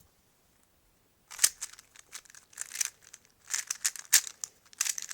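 Rapid, irregular bursts of hard plastic clicking and clattering, starting about a second in and coming in clusters.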